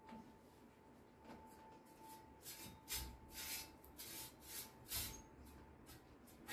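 Faint rubbing and handling of a cloth rag, with a run of short scuffing strokes in the middle.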